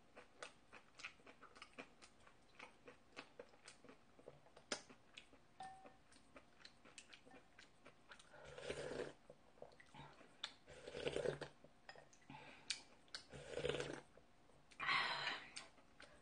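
A person eating close to the microphone: chewing with many small wet mouth clicks, and in the second half four longer, louder slurps of noodle-soup broth.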